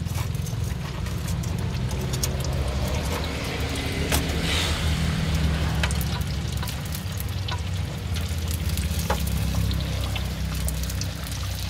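Egg-filled pempek deep-frying in a wok of oil, bubbling and sizzling steadily, with scattered clicks of metal tongs and a spider skimmer against the wok. The sizzle swells briefly about four seconds in, over a steady low rumble.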